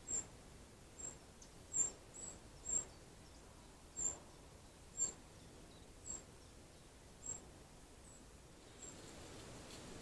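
A bird calling with short, very high, thin peeps, about one a second, which stop near the end.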